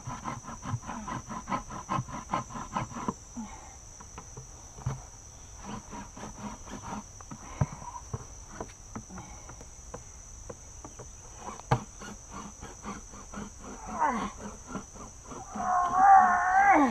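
A dull Glock 78 Field Knife's carbon steel blade sawing through the wall of a plastic bucket, in quick even strokes for the first few seconds, then in slower, scattered cuts. Near the end comes a loud wavering squeal, briefly at first and then for about a second and a half.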